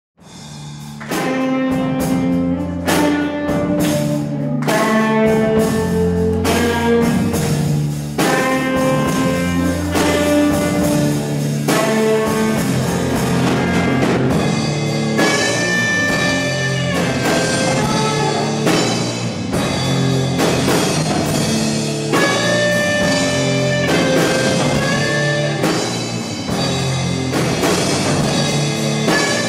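Live rock band of electric guitar, drum kit and saxophone playing. The music starts from silence right at the opening and holds steady and loud.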